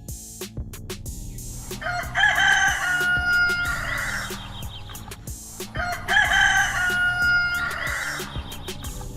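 A rooster crowing twice, each crow a long call of about two and a half seconds, the two about four seconds apart, over background music with a steady beat.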